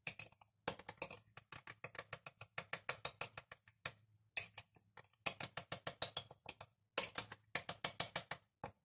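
Metal teaspoon clinking quickly against a small ceramic bowl while stirring dry yeast into warm water, about five light clicks a second with a couple of short pauses.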